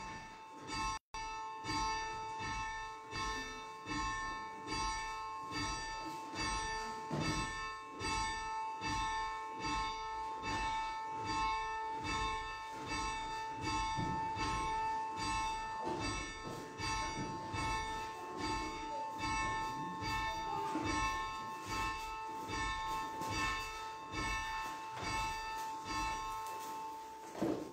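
A single church bell rung steadily for the start of Mass, struck again and again at an even pace so that its ringing tone carries on without a break; it stops near the end.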